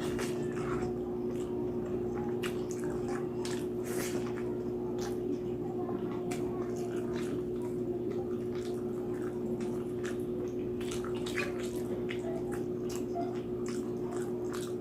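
Close-miked chewing and eating of roast pig's head (lechon): irregular wet mouth clicks and smacks over a steady low hum.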